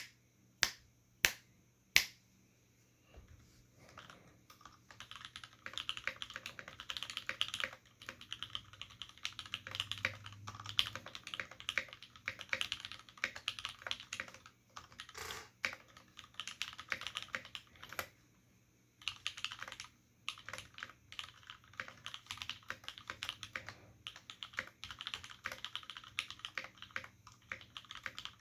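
Mechanical keyboard with lubed Cherry MX Black linear switches in an aluminium plate and Cherry dye-sub keycaps. It gives a few loud single clicks in the first two seconds, then steady fast typing from about three seconds on, with a brief pause near eighteen seconds. The keystrokes carry the 'clack' that Cherry MX boards are known for.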